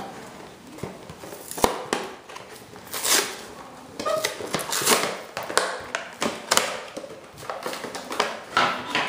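Clear plastic blister packaging being pried and pulled away from its card backing by hand, the plastic crackling and crinkling irregularly.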